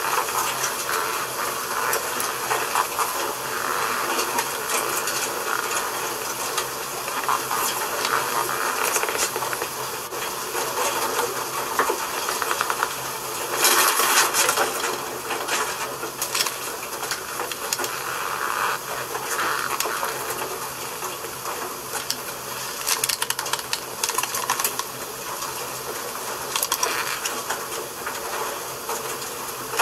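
Steady hiss with rustling and scattered small clicks, briefly louder about halfway through.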